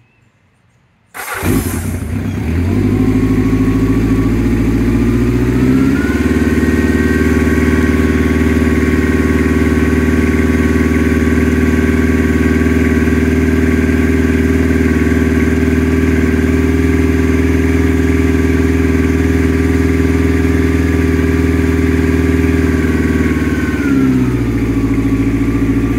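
1985 Honda Nighthawk motorcycle engine cold-started on choke: the starter catches it within a moment about a second in, and it settles into a steady fast idle that rises a step about six seconds in. A little before the end the idle drops back to a lower, steady speed.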